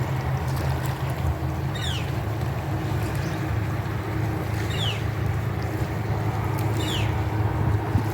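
A bird calling a short, high whistle that falls in pitch, three times a couple of seconds apart, over a steady low rumble.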